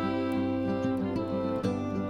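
Background music with plucked acoustic guitar and a steady rhythm of notes.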